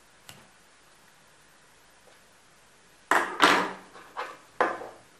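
Handling noise from a phone battery and its soldered wires being moved on a tabletop: a faint click, then about three seconds in, four short knocks and scrapes.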